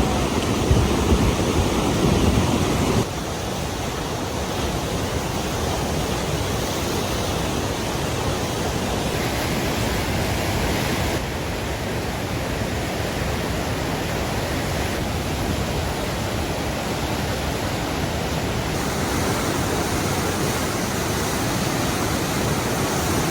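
Flash-flood water rushing: a steady, loud rush of noise with no distinct events. Its character changes abruptly several times, as if from one stretch of flowing water to another.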